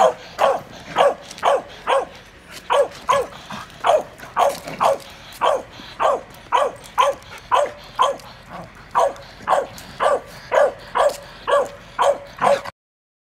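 A dog barking over and over in a steady rhythm, about two barks a second, reacting to another leashed dog. The barking stops abruptly near the end.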